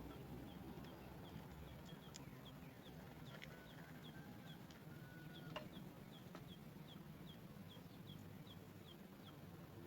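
Faint, steady series of short high peeps, about two or three a second, from sooty chat nestlings calling in the nest, with a few soft clicks.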